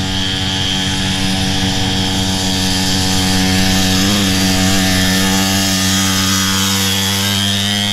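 Small pit-bike engine running at steady high revs, its pitch holding nearly flat with a brief dip about four seconds in.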